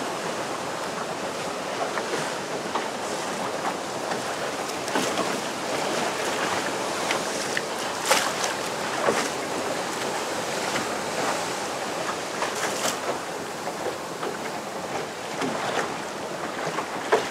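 Sea surf surging and breaking against rock cliffs, a steady rushing wash of water with sharp splashes standing out now and then, the loudest about eight seconds in and near the end.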